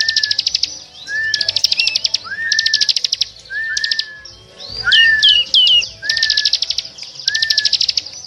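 A noisy chorus of small songbirds, a lure recording for catching small birds: bursts of fast, dry trills about half a second to a second long, repeating over and over, with short rising whistled notes and quick downward-sweeping chirps between them.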